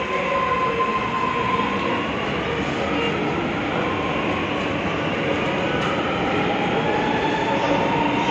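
Metro train running through an underground station: a steady rumble with electric whining tones that dip and then climb in pitch in the second half.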